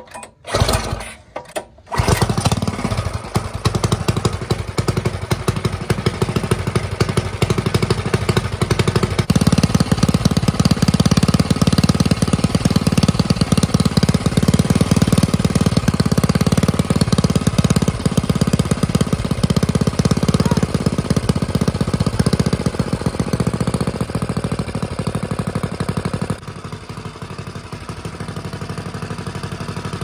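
Mini bike's small single-cylinder engine, fed by a new 22 mm Mikuni carburetor, sputtering and then catching about two seconds in and running steadily. It runs faster and louder from about nine seconds in, then drops suddenly to a quieter, lower idle near the end while the carburetor is being adjusted.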